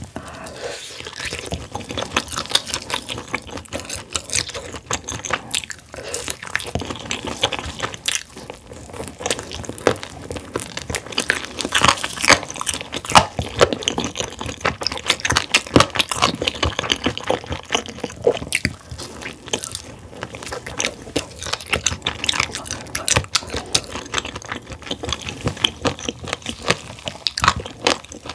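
Close-miked chewing and biting of a roasted chicken wing coated in spicy Buldak sauce: a continuous run of irregular short crunches and clicks.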